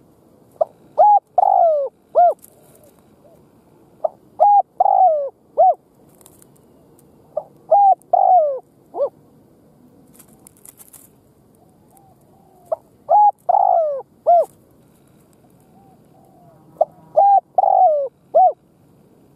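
Spotted dove singing, used as a decoy to lure wild doves: five cooing phrases a few seconds apart, each two short notes, a longer falling note and a closing short note.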